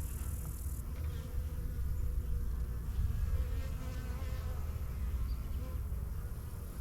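Honey bees buzzing around an open hive, a wavering hum that rises and falls as bees pass close, over a steady low rumble.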